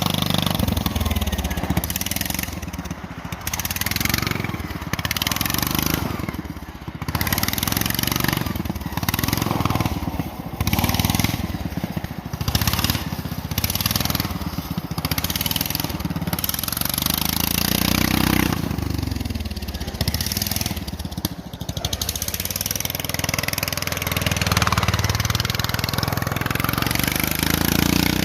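Racing tractor's engine running hard on ice, revving up and falling off again and again, with a steady hiss over it.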